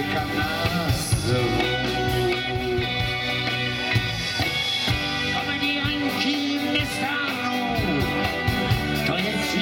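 A live rock band playing a song: strummed acoustic and electric guitars over a steady drum beat, with singing.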